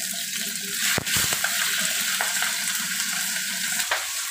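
Yellow grouper deep-frying in hot oil: a steady sizzle and crackle, with one short knock about a second in.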